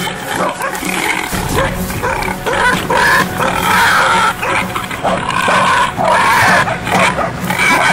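Wild boar squealing and grunting in repeated, irregular cries, over a steady low repeating background tone.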